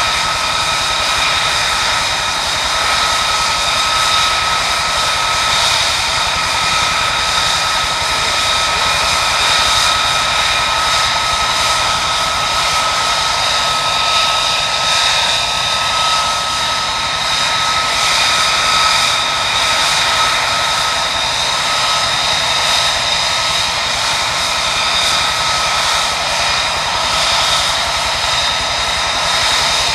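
F-35A Lightning II's Pratt & Whitney F135 turbofan running at ground idle: a steady rush of jet noise with several high whining tones that hold a constant pitch.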